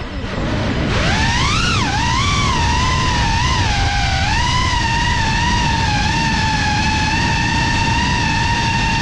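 GEPRC Cinelog 35 FPV drone's motors and propellers whining, the pitch climbing sharply about a second in as the throttle is punched, wavering with the pilot's throttle changes, then holding steady. A low wind rumble runs underneath.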